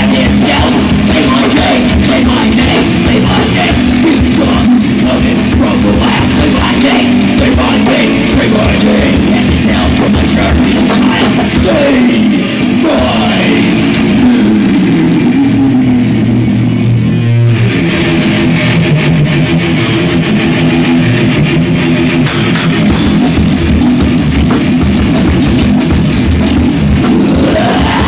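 Rock band playing loud and heavy with electric guitar, bass and drum kit, no vocals. Past the middle there are falling sliding notes, then the cymbals drop out for a couple of seconds over a held low note before the full band crashes back in.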